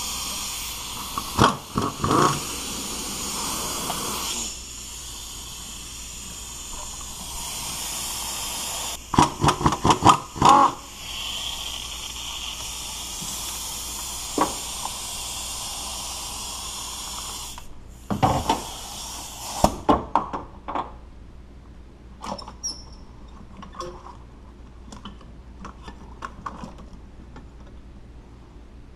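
Pneumatic impact ratchet backing out bolts on a GM 3800 V6: long runs of hissing air exhaust, broken three times by short bursts of rapid knocks. In the last third it goes quieter, with scattered small clicks of hand work.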